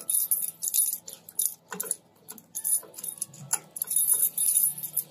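Bunch of keys jangling in short, irregular bursts as the key is turned in a hitch pin lock's threaded cap to screw it tight.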